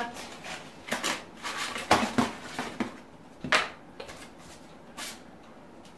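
Thin plastic plant pots being pulled apart and handled, giving a series of sharp plastic clicks and crackles, the loudest about two seconds in and again about three and a half seconds in.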